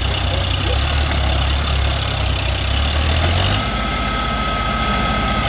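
Diesel engine of a heavy tractor or backhoe running steadily with a strong low hum. About three and a half seconds in the sound changes abruptly and a steady high-pitched tone comes in over a lighter engine sound.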